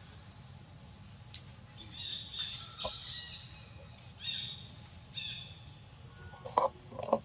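Harsh squawking bird calls, a few in a row in the first two-thirds. Near the end come two short, sharp crunches, louder than the calls, as a macaque bites corn kernels off the cob.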